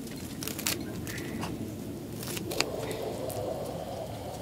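Scattered light clicks and taps of cookware and meal-kit packets being handled, over a steady low rushing background.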